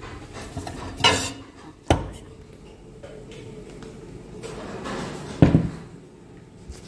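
A glass mixing bowl of dough being handled: a brief rustle about a second in, a sharp knock just before two seconds, and a heavier knock of the bowl being set down about five seconds in.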